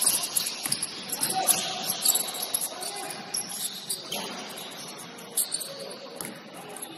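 Basketball shoes squeaking on a gym court during play: repeated short, high squeaks over the hall's background noise.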